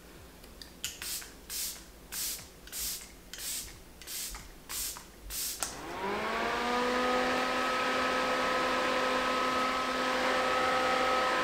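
A makeup setting spray bottle pumped about eight times in quick succession, each a short hiss of mist. About six seconds in, a small battery-powered handheld fan switches on: its whine rises as the blades spin up, then it runs steadily with a hum and a hiss of moving air.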